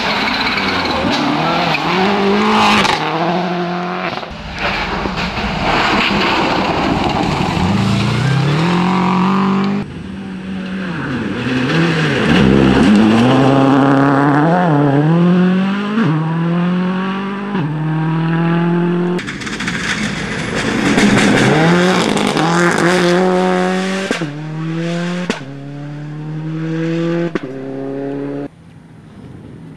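Rally cars passing at full speed on a gravel stage, one after another: engines revving hard, their pitch climbing in steps with a break at each gear change, over the noise of tyres on loose gravel.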